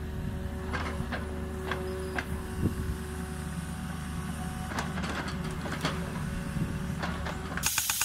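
Mini excavator engine running steadily, with scattered clanks and knocks as the bucket scrapes and digs through soil. Near the end the sound cuts abruptly to a rapid, even, rhythmic tapping with a high whine.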